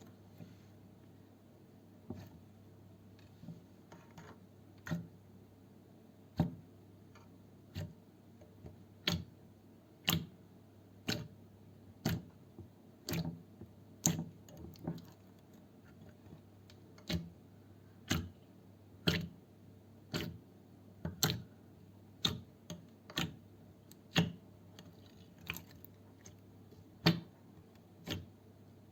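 Slime being pressed and squeezed, giving sharp clicking pops at irregular intervals of about a second, more frequent in the second half, over a faint steady low hum.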